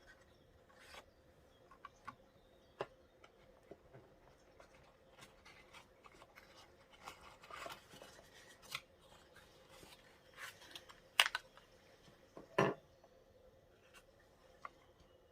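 Close handling sounds of setting up a leather Traveler's Notebook and its accessories: scattered rustles, scrapes and small clicks, with two sharper taps about a second apart near the end.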